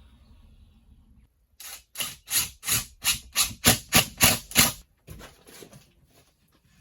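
Quick scraping strokes of a hand tool working drywall: about ten in a row at roughly three a second, then a few fainter ones.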